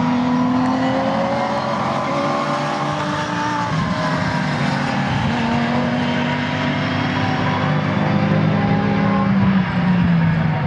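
Three GT race cars running nose to tail, their engines overlapping, with several engine notes rising and falling in pitch as they take a bend.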